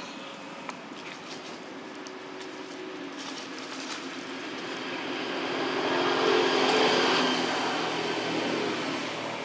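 A passing motor vehicle: a steady engine sound swells to its loudest about two-thirds of the way in, then fades.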